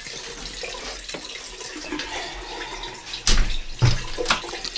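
Water running steadily, broken by three sharp knocks or thumps in the second half, the loudest a little over three seconds in.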